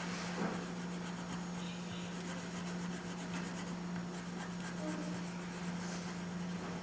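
Coloured pencil scratching on paper as a drawing is coloured in, with a steady low hum underneath.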